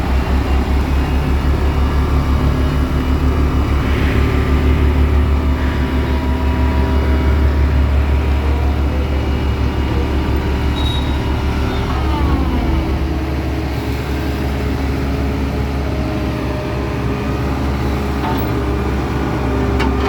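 Heavy diesel construction machinery running steadily, with a deep, fast-pulsing rumble under the engine note. The deepest part of the rumble drops away a little after halfway.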